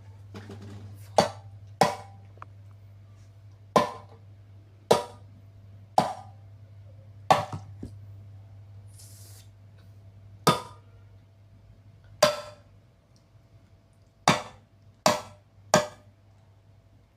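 A Mr. Coffee coffee maker being smashed: about a dozen sharp, hard blows at irregular intervals, some in quick runs of two or three.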